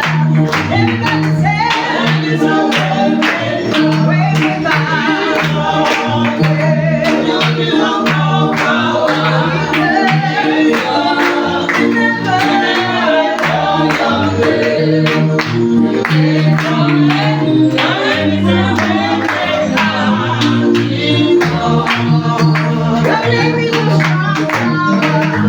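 Praise team singing a gospel worship song together, with band accompaniment and a steady beat.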